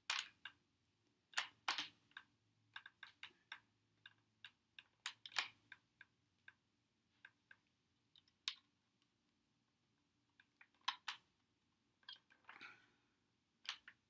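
Irregular light clicks and taps of a metal butter knife working in the seam of an upright vacuum cleaner's plastic base housing, prying to separate the top and bottom halves. The clicks come thickest in the first half, then grow sparse.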